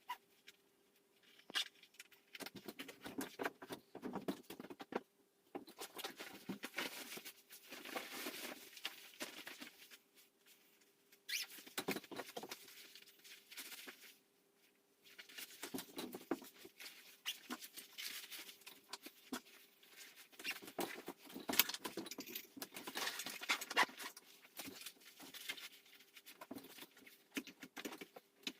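Irregular rustling, scratching and patter in bursts of a second or two, with small clicks, over a faint steady hum.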